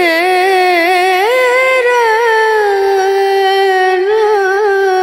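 Background song: one voice holds a single long sung note for about five seconds, sliding up about a second in, easing back down and wavering slightly near the end.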